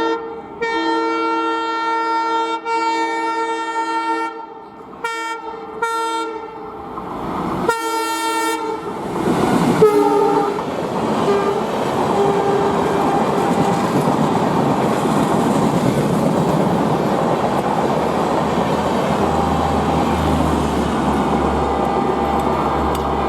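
Diesel locomotive horn sounding a multi-note chord in several blasts, the breaks between them short, over the first nine seconds or so. Then the express train passes close by: a loud, steady rumble with the clickety-clack of coach wheels over the rail joints.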